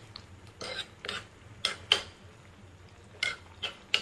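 A metal spoon stirring in a clay casserole, clinking and scraping against the pot with about eight sharp, irregular clicks.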